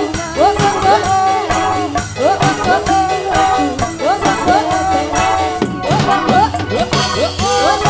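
Live campursari koplo music: a female voice carries a melody with sliding, bending notes over driving kendang drum patterns, gamelan metallophones, a bass line and a quick, steady rattling percussion.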